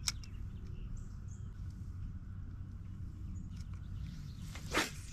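Outdoor ambience: a steady low rumble, a sharp click just at the start, and a brief swishing rustle near the end.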